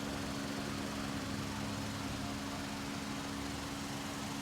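A steady mechanical hum from a running motor, holding an even pitch throughout with no changes.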